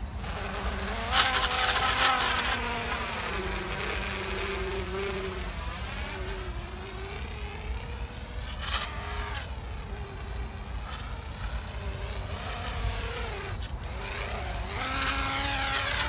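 Eachine ATOMRC Seagull 3.5-inch cinewhoop FPV drone flying, its propellers' whine rising and falling with throttle. It lifts off about a second in and grows loud again as it comes close near the end. It is flying with one propeller cracked.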